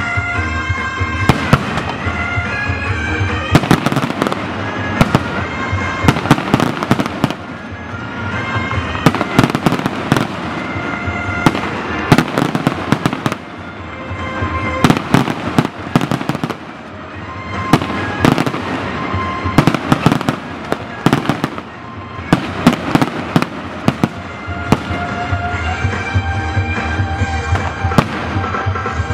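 Fireworks display: aerial shells and crackling bursts going off in rapid, dense succession, with a few brief lulls. Music with a stepping melody plays underneath.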